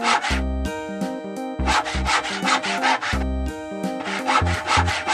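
Saw sound effect: runs of quick back-and-forth sawing strokes, one ending just at the start, one about a second and a half in and another starting near the end, over cheerful background music with a bass line.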